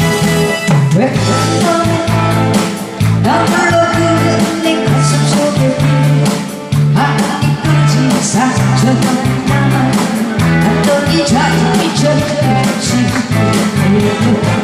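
A woman singing live into a handheld microphone over a recorded accompaniment track with a steady, regular bass line.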